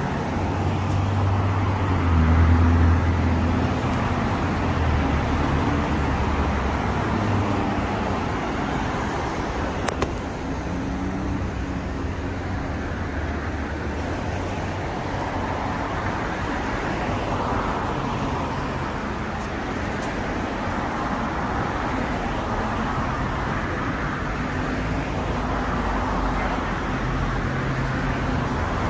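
Steady road traffic noise, cars going by on a city street, a little louder about two seconds in.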